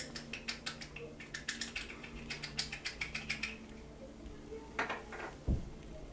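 Small hard objects being handled and clicking against each other. A rapid run of sharp taps and clatters, about four or five a second, lasts for the first three and a half seconds. Near the end come two more clicks and a single low thump, all over a steady low hum.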